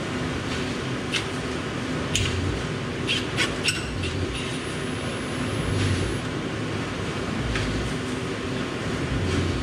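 Cordless drill/driver running in short bursts as it backs bolts out of a machine frame, with a few sharp metal clicks.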